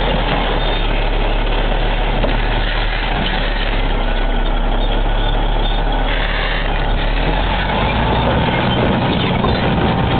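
A large engine running steadily with a constant low hum; the low part of the hum shifts about eight seconds in.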